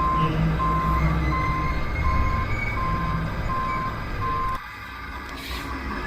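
A truck's reversing alarm beeps evenly in one steady tone, about three beeps every two seconds, over a low engine rumble. Both stop together about two-thirds of the way through, leaving quieter mechanical noise.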